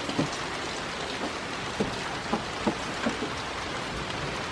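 Steady rain falling, with a few soft, dull knocks scattered through it.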